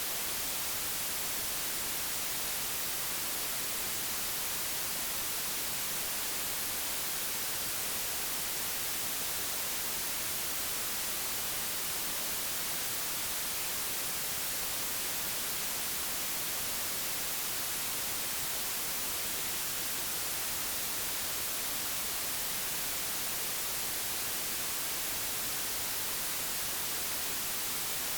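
Digitally generated white noise: a steady, even hiss, unchanging throughout, with no tones or events in it.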